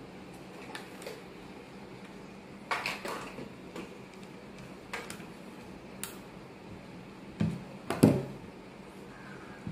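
Scattered clicks and knocks of a screwdriver working the carbon-brush screw in a Makita angle grinder's plastic motor housing, with the loudest knocks near the end.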